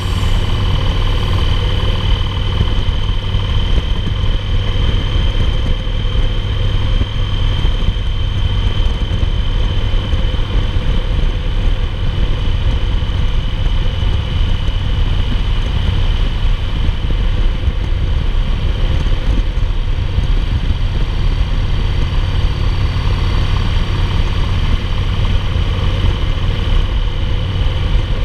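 2008 Yamaha Roadliner's big air-cooled V-twin engine running steadily at cruising speed, mixed with wind and road noise. A thin steady high tone runs over it.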